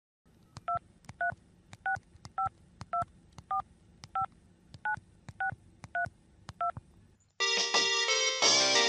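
Telephone keypad dialing tones: about eleven short two-tone beeps, roughly two a second, as a number is dialed. Light background music comes in near the end.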